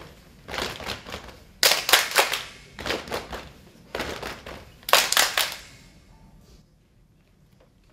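Saman dancers' body percussion: a row of kneeling dancers clapping and slapping in unison, in five quick bursts of sharp claps with short pauses between them. The claps die away about six seconds in.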